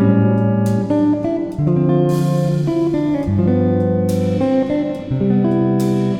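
Background music: a guitar track playing a slow progression of chords, each chord struck and held for about a second.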